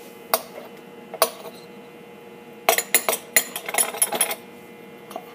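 Metal measuring spoons clinking against each other and against a small glass bowl: two single clinks, then a quick run of clinks and scrapes lasting about a second and a half.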